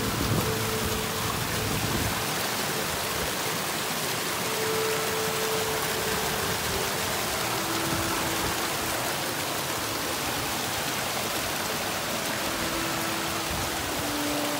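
Steady, even rushing noise like falling water, with a few faint held musical notes underneath.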